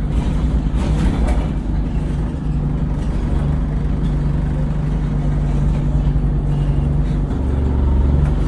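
Diesel engine of an Alexander Dennis Enviro 200 single-deck bus running as it drives, heard from inside the passenger saloon: a steady low hum whose note drops lower about seven seconds in.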